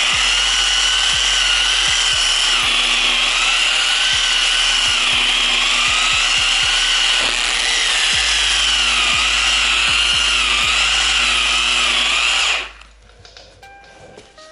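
Dual-action polisher running at a higher speed with a microfiber cutting pad and compound, pressed hard against a car door panel to cut out sanding marks; its motor whine wavers slightly. It shuts off near the end.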